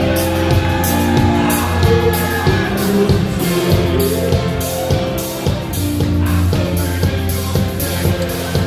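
A live rock band plays an instrumental passage: drum kit keeping a steady beat, with bass guitar and sustained chords from guitar and keyboard.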